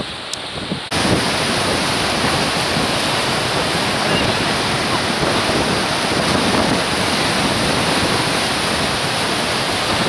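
Sea waves washing and breaking over shoreline rocks in a steady rush of surf, with wind on the microphone. The sound jumps up suddenly about a second in, after a quieter moment.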